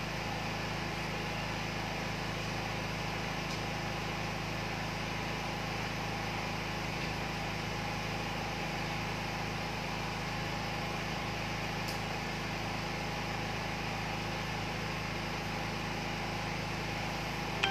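Steady background hum and hiss, even in level, with no speech.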